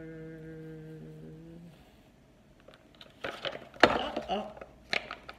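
A woman's drawn-out hum for the first second and a half, then crackling and clicking of a stiff clear plastic pacifier package being handled, loudest about four seconds in.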